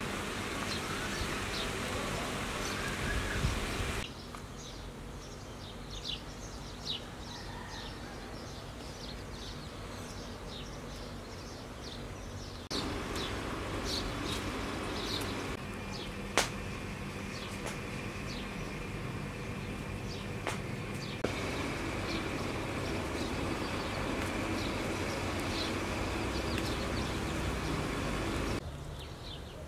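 Outdoor garden ambience: small birds chirping repeatedly over a steady hum of insects, with a few sharp clicks. The background changes abruptly several times.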